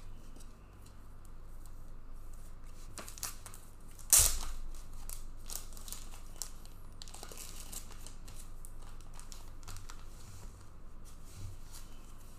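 Trading cards and their plastic packaging being handled: crinkling and rustling with scattered light clicks, and one loud sharp snap about four seconds in.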